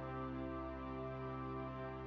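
Background music with long, held notes.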